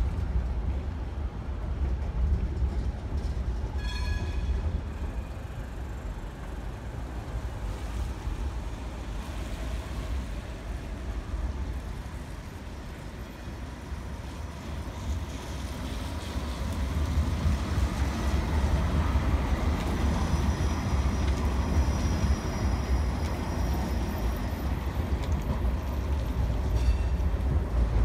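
Low-floor electric trams rolling along street rails with a low, steady rumble of wheels and running gear, which grows louder as trams draw near in the second half. A short high ringing tone sounds about four seconds in, and a thin high wheel squeal from the rails is heard around two-thirds of the way through.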